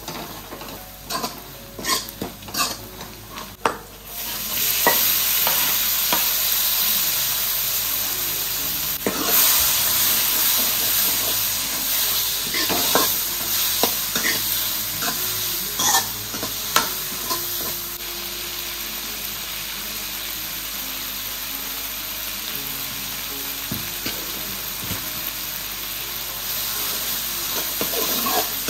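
Steel ladle scraping and clinking in a metal kadai as onions fry in oil. About four seconds in, a loud sizzle starts suddenly as chopped tomatoes go into the hot oil, and it keeps on under the ladle's scrapes and clinks as they are stirred, easing a little in the second half.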